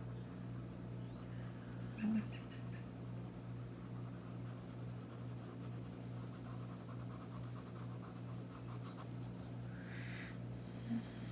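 Coloured pencil shading on paper: a soft scratching of quick, light strokes, thickest in the middle of the stretch, over a steady low hum.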